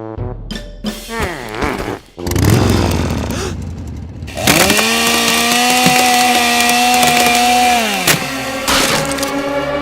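Two-stroke chainsaw engine revved several times in the first few seconds. It is then run up to full throttle, held steady for about three seconds, and drops back near the end.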